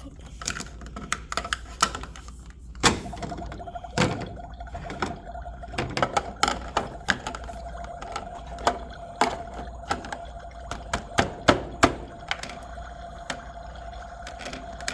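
Irregular knocks, clicks and thunks of objects being handled and set down, like kitchen clatter during food preparation. A steady faint hum joins about three seconds in.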